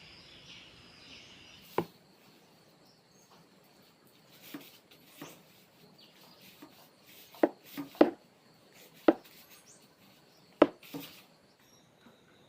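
A series of irregular sharp clicks and knocks, about nine of them, sparse at first and bunched more closely in the second half.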